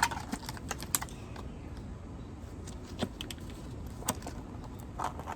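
Thin plastic cut from a water bottle handled and flexed in gloved hands, giving a few light, irregular clicks and crackles.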